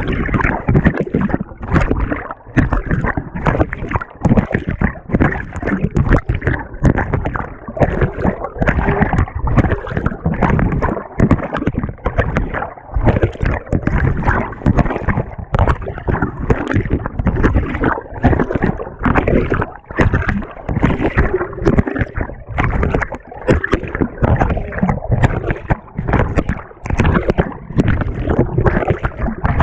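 Water and laundry churning and sloshing around the agitator of a GE GTW220ACKWW top-loading washing machine during agitation, heard from a camera riding on the agitator, in loud irregular surges with brief dips.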